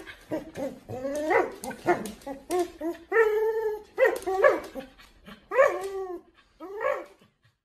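Husky-type dog making a run of short whining, howling calls, each rising and falling in pitch, while tugging on a rope toy. One longer held call comes a little past three seconds in, and the calls stop about seven seconds in.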